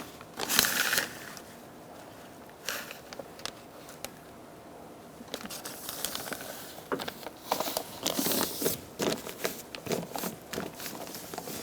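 Plastic door vapor barrier crinkling and rustling as it is handled and pressed back onto the inner door, in irregular crackly bursts with a quieter stretch in the middle.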